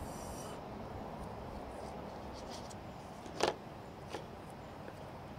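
Quiet, steady outdoor background noise, with a sharp click about three and a half seconds in and a fainter one soon after, from plumbing parts being handled: a brass valve and fitting being taped and turned.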